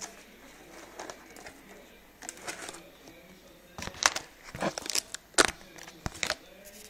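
A cardboard box with foam packing peanuts being handled: rustling and scraping of cardboard and foam, with several sharper, louder scrapes and knocks in the second half.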